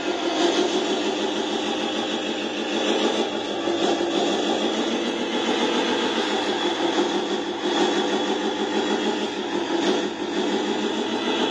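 Radio-controlled semi-truck's sound unit playing a diesel engine idling, a steady pulsing run through the truck's small speaker.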